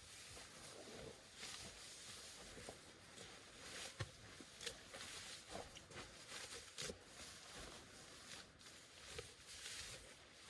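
Faint patter of rain, with scattered irregular taps and ticks of drops.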